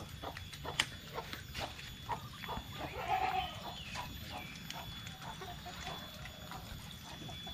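Village chickens clucking, with a louder squawk about three seconds in and scattered light knocks.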